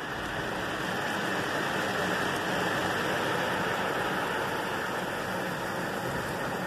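Automatic car wash water jets spraying over the car, heard from inside the cabin as a steady rush of water on the glass and body, building a little over the first couple of seconds.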